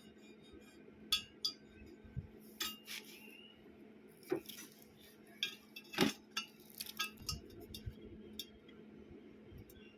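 Light metal clinks and taps from metal pieces being handled and set down, scattered irregularly and loudest about six seconds in, over a faint steady hum.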